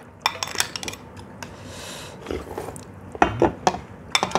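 Metal spoons and a ladle clinking and scraping against stainless steel bowls as iced fruit punch is ladled out and eaten, in scattered light clicks that come a little thicker near the end.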